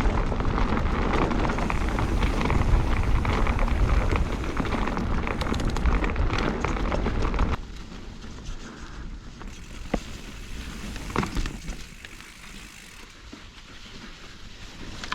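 Mountain bike's knobbly tubeless tyres (Schwalbe Magic Mary front, Hans Dampf rear) rolling over a dirt trail: a loud, dense rush of noise. About seven and a half seconds in it drops suddenly to a much quieter rolling with a few sharp clicks.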